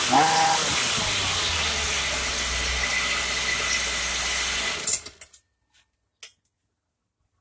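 Shindaiwa concrete cutter's engine running, its pitch falling in the first second as it is throttled back, then running low and steady before it cuts off about five seconds in. A few faint clicks follow.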